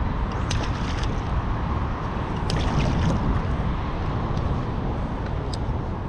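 Steady wind buffeting the microphone, with river water lapping and trickling close by and several light clicks scattered through.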